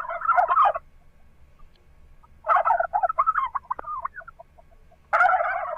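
Turkey gobbling in rapid warbling bouts: one ends in the first second, another comes about two and a half seconds in, and a third starts near the end.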